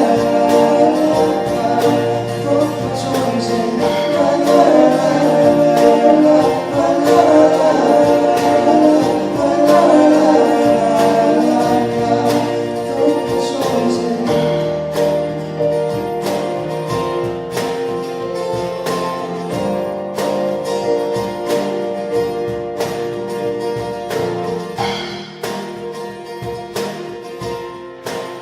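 Acoustic guitar, piano and keyboard playing an instrumental passage of a ballad, with a steady strummed or struck rhythm in the second half, growing gradually quieter.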